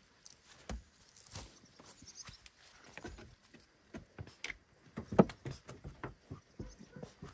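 Goat hooves stepping and shuffling over grass and wooden boards: a string of irregular taps and knocks, the loudest about five seconds in.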